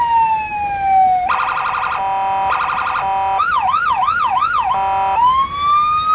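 Electronic siren of a toy fire engine cycling through its tones: a falling wail, a fast pulsing tone, a hi-lo two-tone, a quick warbling yelp of about three cycles a second, the two-tone again, then a rising wail near the end.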